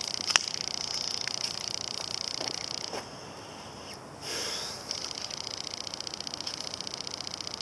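A steady, high-pitched, fast-pulsing trill of summer-evening insects, which breaks off for about a second near the middle. A short click comes early, and a brief snuffling rustle about four seconds in is a young Griffon Korthals puppy sniffing at the grass.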